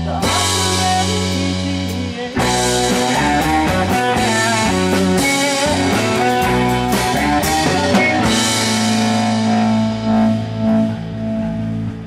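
Live rock band playing: electric guitars, bass guitar and drum kit. A held chord gives way about two seconds in to a busy stretch of quick notes with drum hits, which settles into long held notes from about eight seconds in.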